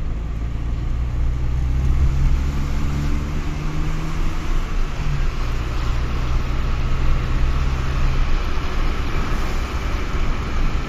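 Car driving along a road, heard from inside: a steady low engine hum under road and wind noise.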